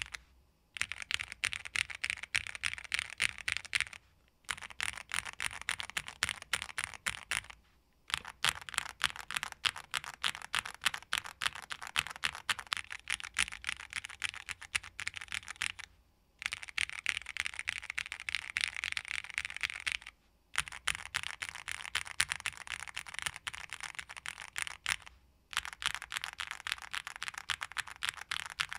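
Fast typing on a Tofu60 2.0 mechanical keyboard with Cherry MX Hyperglide Black linear switches, PBT keycaps and a PC plate: rapid keystroke clacks in runs of a few seconds, broken by brief pauses.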